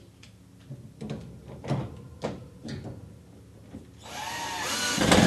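A few light knocks, then about four seconds in a cordless drill spins up, its motor whine rising, as it drives a screw through a U-bracket into a wall anchor.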